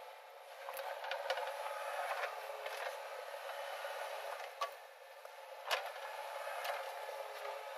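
JCB 3DX backhoe loader's diesel engine running while the backhoe arm digs and lifts a bucket of soil. About half a dozen sharp clanks come from the arm and bucket.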